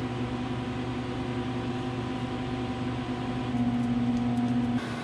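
Steady electrical machine hum, a little louder for just over a second near the end.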